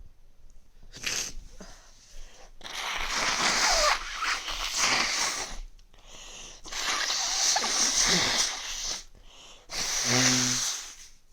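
A person with a cold sneezing and blowing their nose. There are three loud nasal blasts: the first two last about three seconds each, and the last is shorter, with a voiced sound in it near the end.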